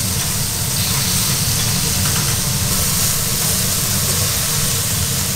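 Cubes of oyster blade and chuck flap beef steak sizzling on a hot iron griddle, a steady frying hiss over a constant low hum.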